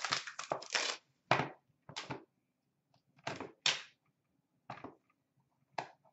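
Hands handling and opening a sealed box of hockey trading cards: short cardboard and wrapper rustles and scrapes, several close together in the first second, then single ones about once a second.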